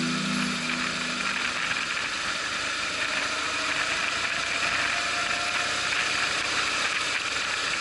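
BMW R 1100 boxer-twin engine running steadily at road speed, heard as an even mechanical whirr and chatter with no change in revs.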